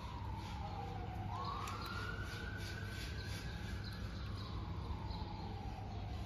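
Emergency-vehicle siren wailing in slow sweeps: its pitch falls, jumps back up about a second in, climbs briefly, then falls slowly over several seconds. Steady low street rumble lies underneath.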